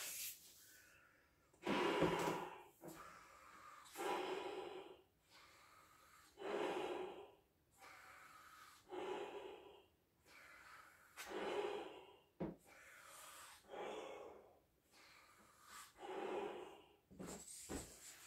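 A person blowing up a large clear 24-inch Belbal latex balloon by mouth: seven long breaths blown into the balloon's neck, about one every two and a half seconds, each with a quieter breath drawn in between.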